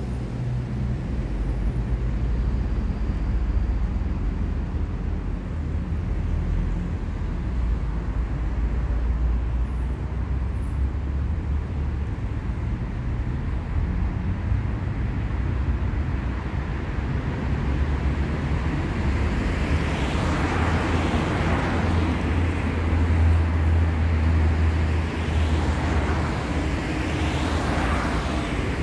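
City street traffic: a steady low rumble of engines, with two vehicles passing close, one around two-thirds of the way in and another near the end.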